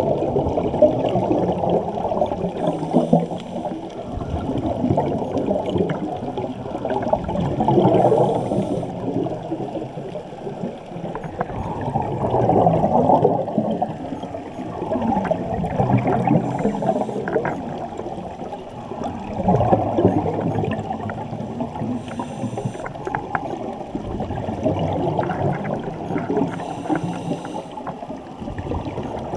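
Muffled underwater water noise picked up by a camera in its waterproof housing, swelling and fading about every four seconds, with a few brief faint hissing patches.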